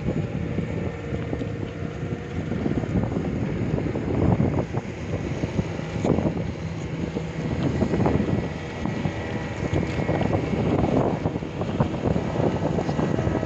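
Wind buffeting the microphone: a rough, low rumble that swells and fades in gusts every second or two.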